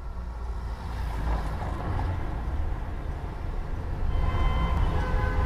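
Deep rumbling swell that grows louder, with sustained string notes coming in about four seconds in: the opening of a cinematic soundtrack.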